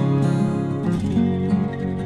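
Background instrumental music led by an acoustic guitar playing a steady run of notes.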